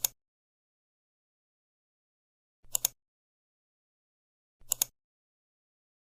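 Three brief sharp clicks, each a quick double click, about two seconds apart, with dead silence between them.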